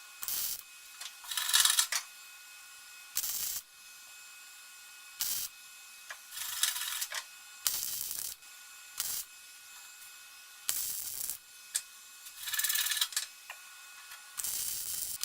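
Welding arc crackling in about ten short bursts with pauses between, the on-off rhythm of stitch-welding a steel patch panel into car bodywork.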